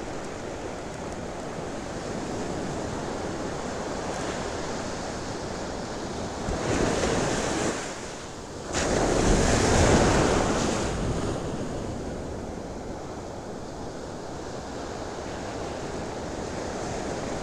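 Ocean surf breaking and washing up the beach, with wind buffeting the microphone. The wash swells louder twice around the middle, the second surge the louder.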